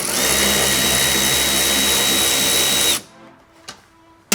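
Cordless power driver spinning a 10mm socket to back out a taillight mounting bolt: a steady motor whine that stops about three seconds in. A sharp click comes near the end.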